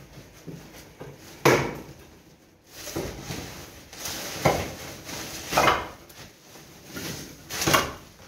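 Demolition debris clattering and knocking as it is handled and dropped into woven rubble sacks, with four sharp knocks spread through and the sacks rustling between them.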